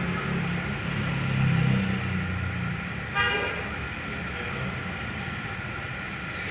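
Yamaha MX King's 150 cc single-cylinder four-stroke engine running with a low rumble, swelling briefly about one and a half seconds in. A short vehicle horn toot sounds about three seconds in.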